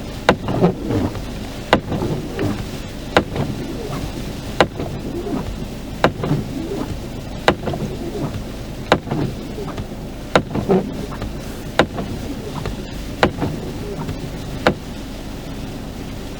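Windscreen wipers sweeping, with a sharp knock about every second and a half over a steady low hum of the stationary van and blizzard wind; the knocking stops near the end.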